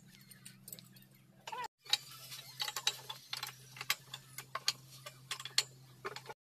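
Quick, irregular clicks and light metallic taps from a metal borewell column pipe and its clamp being handled as a submersible pump is lowered, over a faint steady hum.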